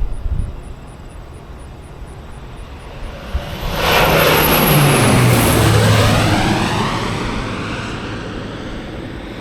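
Crop-dusting airplane making a low pass overhead: its engine swells from about three and a half seconds in, peaks, drops in pitch as it goes by, then fades slowly away.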